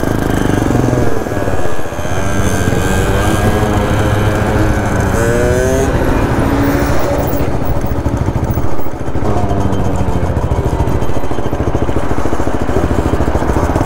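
Small moped engines running under way, the pitch rising several times as they speed up and dropping again, over steady wind and road noise.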